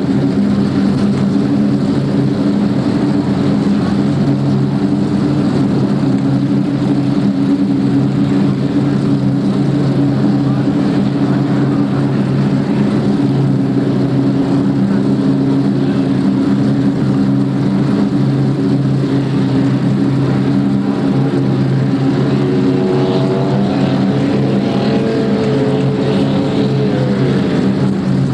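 Offshore racing powerboat engines running with a loud, steady drone. Near the end, a second, higher tone wavers up and down over it.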